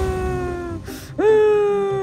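A woman's pretend crying. A long wail trails off, a sharp sobbing breath comes about a second in, and then another wail swoops up and slowly sags in pitch.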